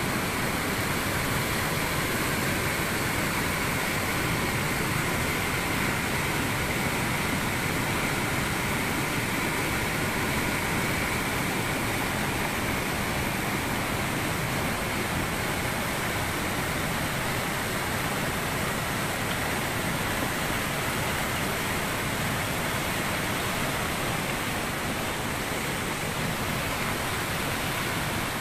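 A river in monsoon flood, its muddy brown water rushing past with a steady, even noise.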